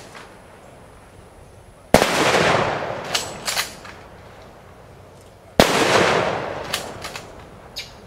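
Rifle firing party firing two volleys of a funeral salute with blank rounds, about two seconds in and again three and a half seconds later: each a single sharp crack with a long echoing tail. A few sharp metallic clicks follow each volley as the riflemen work their actions to chamber the next round.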